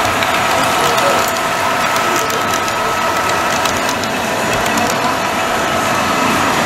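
OO gauge model locomotive running on the layout: a steady mechanical whine with light clicking.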